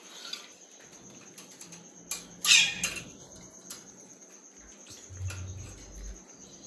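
Birdseed poured into a cage feeder: a short rattling pour about two and a half seconds in, with light scratching and handling noise around it and birds chirping faintly.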